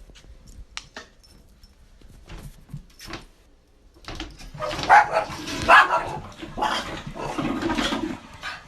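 A cat sneezing: a run of short, noisy bursts that starts about four seconds in, the two loudest coming close together about a second later.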